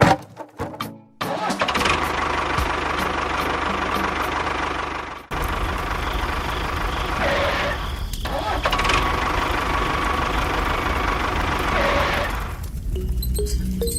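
A small motor or engine running steadily after a few sharp clicks. It cuts out for a moment about five seconds in, restarts, and stops near the end.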